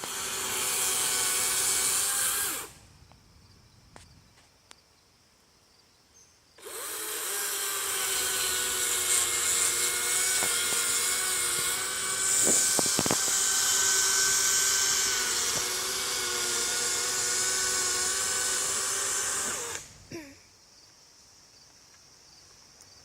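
DeWalt 60V cordless chainsaw running and cutting into a pine trunk, its electric motor giving a steady whine under the hiss of the chain in the wood. It runs for about three seconds, stops for about four, then runs again for about thirteen seconds before stopping near the end.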